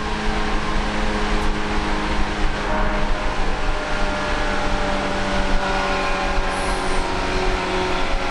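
Running noise of a JR 185 series electric train at speed, heard from inside the passenger car: a steady rumble of wheels on track with a constant hum of motors and gears.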